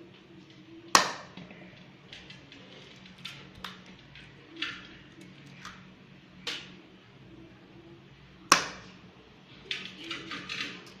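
Kitchen utensils being handled: two sharp knocks, one about a second in and one near the end, with lighter clicks and clinks between.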